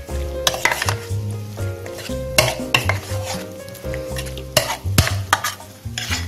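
Metal spoon stirring and scraping a wet noodle-and-vegetable kabab mixture in a white bowl, with repeated sharp clicks of the spoon against the bowl. Oil sizzles steadily in a frying pan where kababs are frying.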